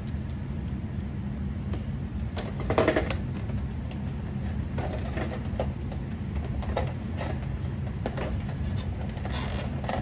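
Clear plastic packaging being handled, rustling and clicking a few times, loudest about three seconds in, over a steady low hum.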